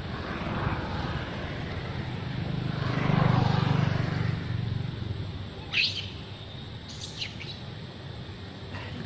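Outdoor ambience: a low rumble that swells about three seconds in and then fades, with two short, sharp high chirps a little past the middle.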